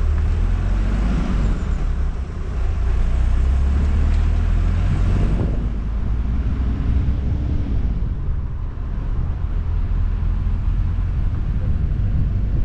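A car driving along a road, heard from a camera on its roof: a steady deep wind rumble on the microphone over tyre and road noise.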